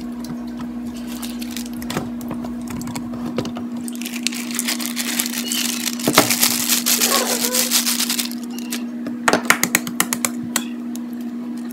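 Dry cookie mix with chocolate chips shaken out of a paper bag into a plastic mixing bowl, a rustling and pouring noise with a knock in the middle. Near the end come several quick sharp taps as an egg is knocked against the bowl to crack it, over a steady low hum.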